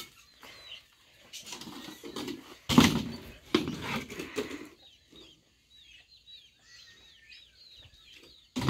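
Farmyard sounds: a few loud scrapes and knocks as a hoe and a wooden crate are handled, the loudest starting sharply about three seconds in, with hens clucking. Through the last few seconds come many quick, high chirps of small birds.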